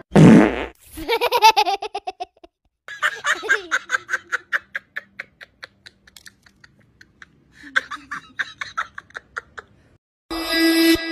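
A loud, short fart noise right at the start, followed by several bursts of laughter. Music comes in near the end.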